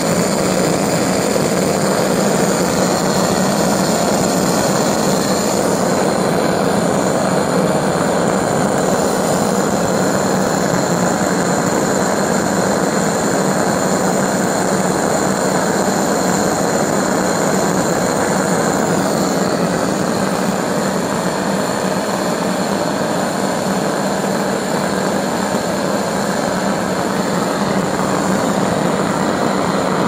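Homemade Tesla pulse-detonation engine running on LPG and compressed air: a loud, continuous combustion roar with a steady low buzzing hum and a faint high whistle. The engine is holding its resonance, firing steadily.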